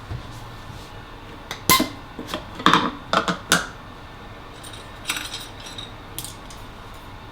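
Kitchenware being handled: a run of clinks and knocks of dishes and utensils, busiest about two to three and a half seconds in, with a few lighter clicks later.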